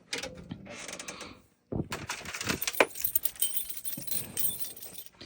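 Clicking and rattling of small hard parts being handled, short at first, then dense and irregular from about two seconds in.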